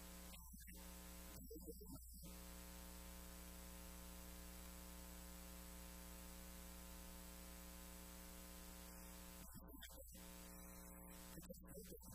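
Near silence: a steady electrical mains hum with a faint hiss.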